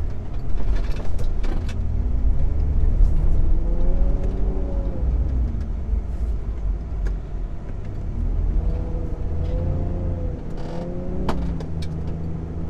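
Mitsubishi Pajero's engine running under load as it drives over soft sand dunes, with a heavy low rumble. The revs rise and fall twice, climbing about 3 s in and again from about 8 s. There is a sharp click about 11 s in.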